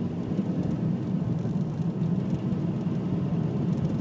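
Steady engine and road noise heard inside the cabin of a car being driven along a street.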